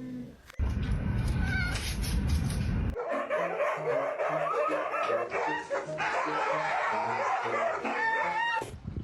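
A dog barking and yipping in short calls, with music playing behind it.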